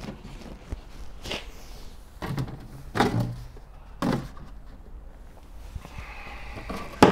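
Workshop items being moved and put away at a workbench: four separate knocks and thuds over the first four seconds, then a sharp click near the end.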